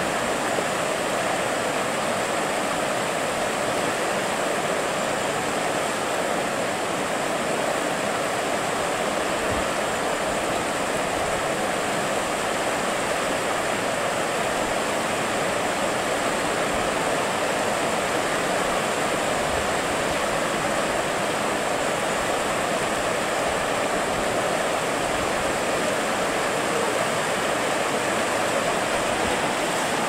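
River water rushing steadily over a shallow riffle, a continuous, even rush with no breaks.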